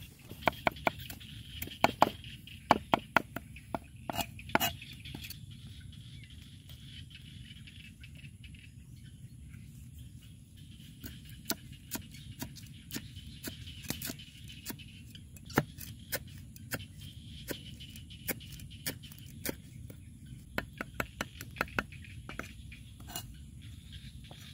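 Cleaver chopping lemongrass and herbs on a wooden chopping block: a quick run of sharp strikes, a lull of several seconds, then irregular strikes again.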